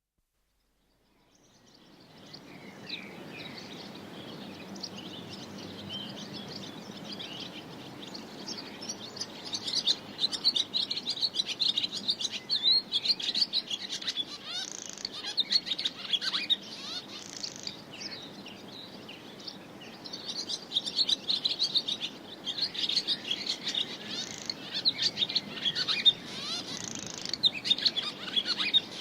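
Barn swallow twittering: a rapid, continuous chatter of high chirps and warbles that fades in over the first couple of seconds, grows busier, eases for a few seconds past the middle, then picks up again, over a steady low background noise.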